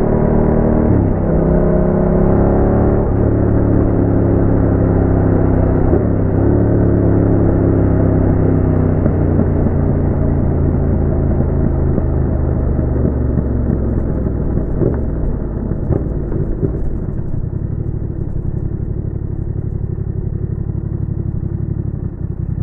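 Yamaha MT-07's 689 cc parallel-twin engine breathing through a Roadsitalia aftermarket exhaust, its pitch climbing and then dropping sharply twice, as when pulling through gear changes. It then settles to a lower, steadier note that grows gradually quieter toward the end.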